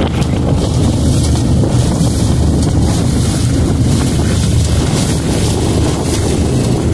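A boat's motor running steadily under way, with wind buffeting the microphone.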